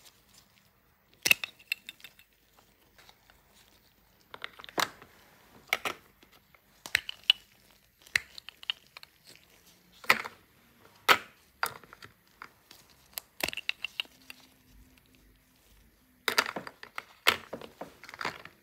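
Plastic toy egg halves and shape pieces clicking and knocking against each other and a plastic egg tray. The sharp clacks come in scattered clusters with short quiet gaps between.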